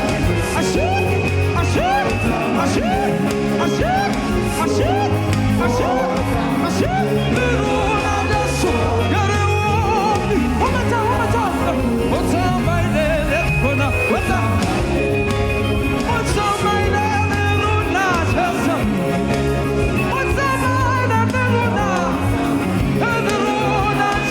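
Live gospel praise music: a band with a steady, prominent bass line, and singing with sliding, ornamented vocal lines over it.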